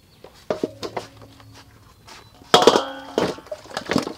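Metal tongs and raw chicken pieces knocking against stainless steel bowls, each knock leaving the bowl ringing, with one loud clang and a long ring a little over halfway through.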